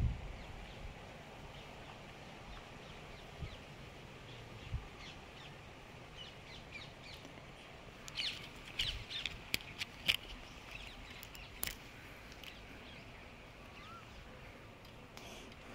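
Birds calling over a faint outdoor hush, with a bunch of short high calls and clicks from about eight to twelve seconds in, and a low thump at the very start.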